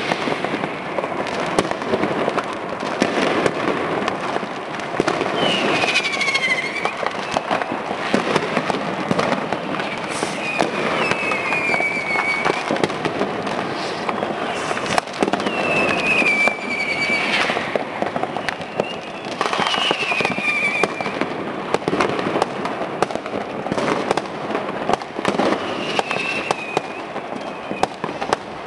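Amateur New Year's Eve fireworks and firecrackers going off nonstop, a dense crackle of bangs and pops near and far. Several whistling fireworks cut through it, each whistle falling in pitch, about five in all.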